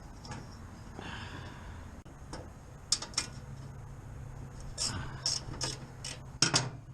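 A series of sharp metallic clicks and clinks from hands and tools working on a rooftop HVAC unit's blower belt and pulley, about eight of them from about halfway in, over a steady low hum.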